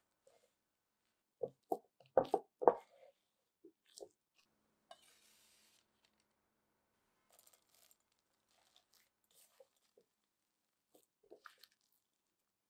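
Hands working crumbly scone dough of flour and butter in a glass bowl: a quick run of soft crunching, squishing handling sounds about two seconds in, then a brief soft hiss and a few faint clicks.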